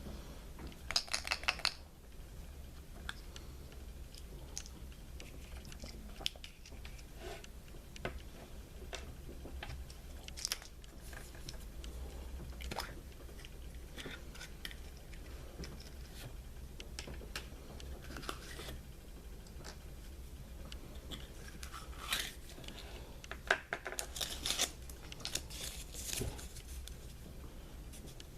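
Hands handling a Kinder Surprise egg and its small plastic toy: crinkling wrapper and light plastic clicks and crackles in scattered short bursts, busiest about a second in and again near the end.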